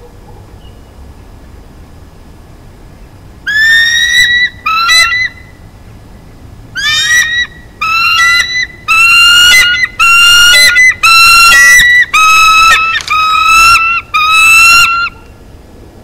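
Bald eagle calling: a series of about ten loud, high, piping calls starting a few seconds in and lasting around eleven seconds.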